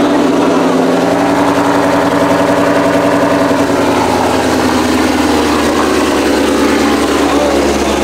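Ford Mustang GT's Gen 1 Coyote 5.0 V8 idling steadily after a cold start, loud through its exhaust.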